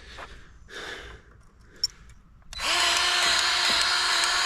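Quiet handling clicks, then about two and a half seconds in a battery-powered grease gun's motor starts and runs steadily at one pitch, pumping grease into a stump grinder's grease fitting.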